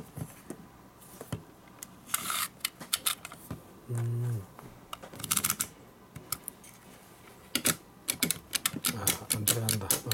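Irregular sharp plastic-and-metal clicks of a 25 mm snap-off cutter knife with an aluminium body, as its blade and slider are worked in and out of the handle, with two brief scrapes of the blade sliding. A short hummed voice sounds about four seconds in.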